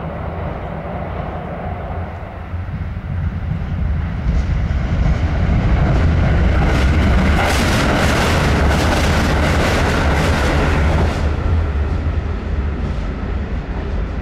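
A diesel railcar passing: a deep engine rumble builds, is loudest for several seconds with a rapid run of clicks from the wheels on the rails, then eases off.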